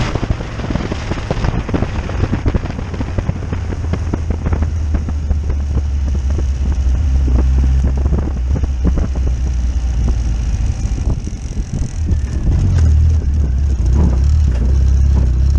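A car driving over rough ground: a steady low engine drone with many knocks and rattles from the body and suspension, getting louder about twelve seconds in.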